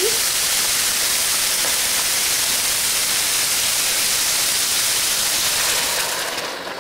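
Shrimp, carrots and green peas frying in hot ginger-infused oil in an electric wok: a loud, steady sizzle that fades near the end.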